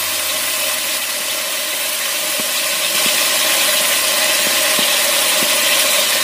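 Chicken, carrot and broccoli stems sizzling steadily in hot oil in a wok, over a steady hum, with a few faint ticks.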